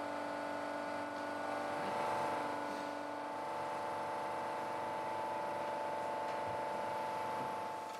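Compression testing press running with a steady whir and hum made of several held tones, swelling slightly about two seconds in, while it loads a rammed earth test sample.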